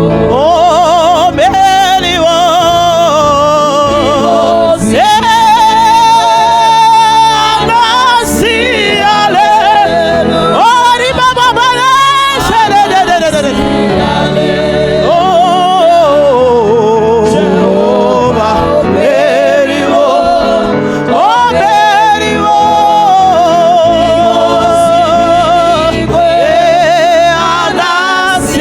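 Gospel song: a voice singing long, wavering notes with heavy vibrato over steady instrumental backing.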